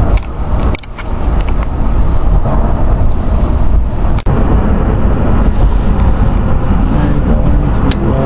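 A moving car's road noise and engine rumble, heard from inside the cabin: a loud, steady, deep rumble. A few sharp clicks sound in the first two seconds.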